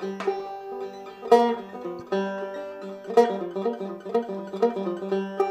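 Intro theme music: a melody of quickly picked notes on a plucked string instrument, each note struck sharply and fading away.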